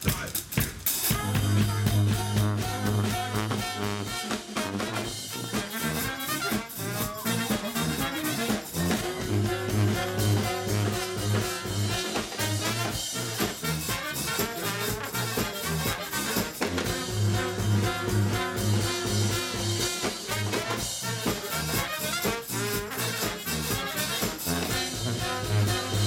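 Live brass band playing an upbeat ska-like number: baritone saxophone and sousaphone over a drum kit, the sousaphone pumping a bass line of short repeated notes.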